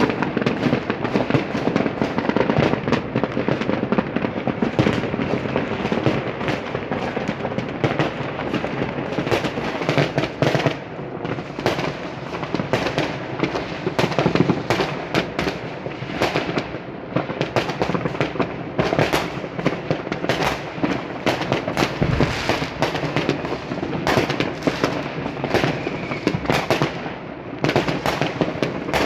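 Fireworks and firecrackers going off in a dense, continuous barrage: many overlapping bangs and crackles with no real pause, easing only briefly twice.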